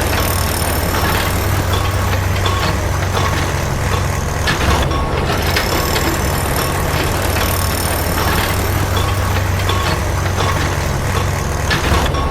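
Steady truck-like engine sound, with a constant low hum under a dense hiss. It drops out briefly about five seconds in and again near the end, as if repeating in a loop.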